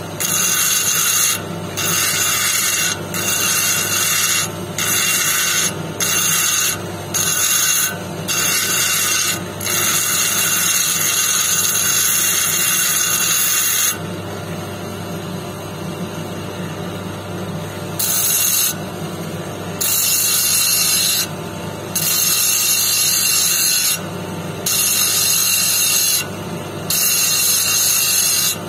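Jasper stone on a wooden dop stick pressed in short repeated touches against a spinning lapidary wheel, giving a high scraping hiss each time it meets the wheel, about a second long and every second and a half or so, over the steady hum of the wheel's electric motor. Near the middle the scraping runs unbroken for about four seconds, then stops for about four seconds with only the motor running, before the short touches start again.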